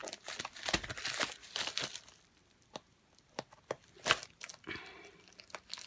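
Plastic packaging crinkling and rustling as diamond painting kits are handled and opened, with scattered sharp clicks and taps. Busiest for about the first two seconds, then sparser.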